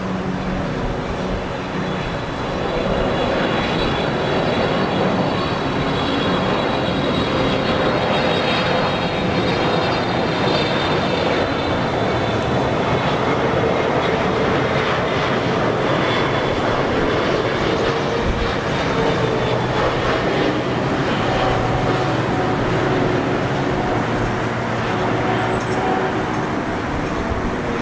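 Boeing 777-300ER's GE90 turbofan engines on a landing, a loud steady jet rush with a high fan whine that slowly falls in pitch.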